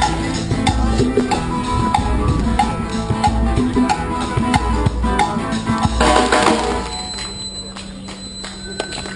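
Street band playing drum-led, rhythmic music. About six seconds in there is a brief loud noisy wash, and after it the music turns quieter.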